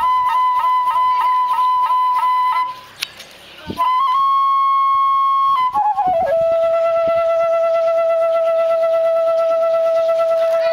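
Solo flute playing held notes. It sustains a high note ornamented with quick flicks about three times a second, breaks off briefly, holds another high note, then slides down to a long, steady lower note.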